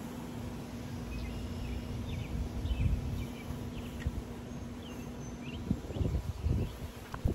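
Outdoor ambience: small birds chirping in short, high calls over a steady low hum, with low rumbling thumps about three seconds in and again around six seconds.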